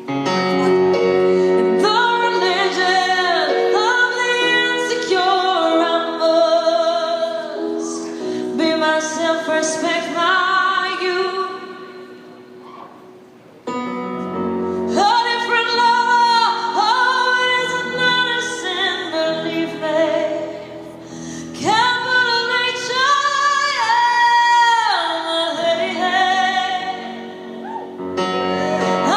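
A woman singing a slow song over piano accompaniment. The sound dips about halfway through and comes back suddenly.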